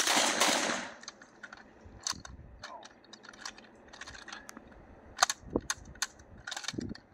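Suppressed full-auto 9 mm M10 submachine gun ending a rapid burst about a second in, followed by scattered sharp metallic clicks and clacks from the guns.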